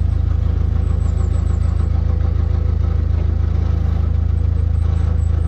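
Narrowboat's diesel engine running steadily, a low even chugging with no change in speed.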